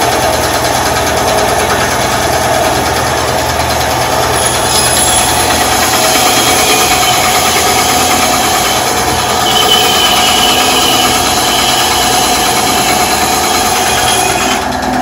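Skil 2.5-amp 9-inch benchtop band saw running steadily, its blade cutting through a slab of cherry wood in a test cut of a newly fitted blade.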